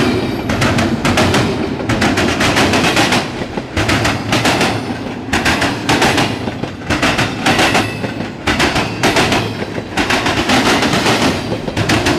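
Intermodal freight train cars rolling past close by: a steady rumble with many sharp, irregular wheel clicks and bangs over the rail joints.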